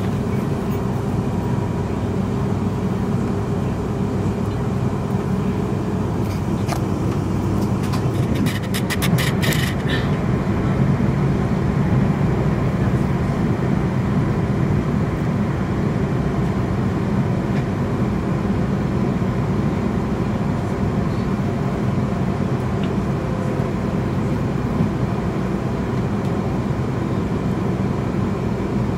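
Interior running noise of a Class 350 Desiro electric multiple unit at speed: a steady rumble of wheels on rails with a faint steady tone over it. A short run of sharp clicks comes about eight to ten seconds in.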